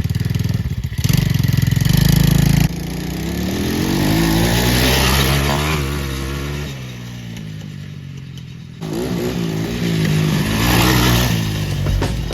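Four-wheeler (ATV) engine revving up and down as it is ridden, its pitch rising and falling in two long swells.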